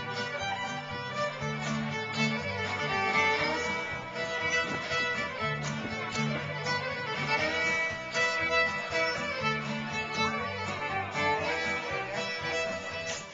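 Fiddle playing a lively tune in the Métis fiddle style, over a guitar accompaniment with repeating bass notes.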